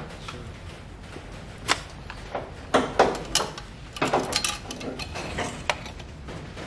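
Irregular sharp clicks and knocks of metal tools and parts being handled, a dozen or so strikes with a cluster in the middle.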